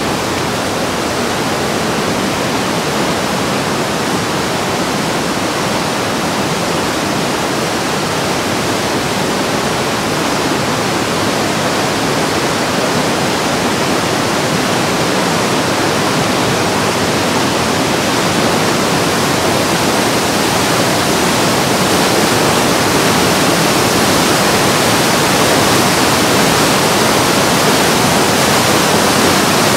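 Whitewater of the Breitach river rushing and cascading through a narrow rock gorge: a steady, loud noise of water that grows slightly louder toward the end.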